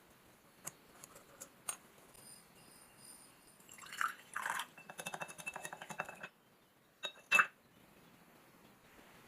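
Small metal clicks and scrapes from an old brass lighter being handled, with a rapid run of ticks in the middle and a single sharp metallic clink near the end.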